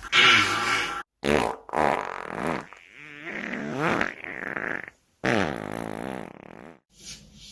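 A string of about five human farts, each a pitched tone that wobbles up and down, some cut off by sudden drops to silence.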